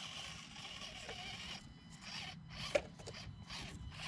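Axial SCX24 micro RC crawler's small electric motor and gears buzzing faintly in short stop-start bursts as it is driven over the course, with a sharp click a little under three seconds in.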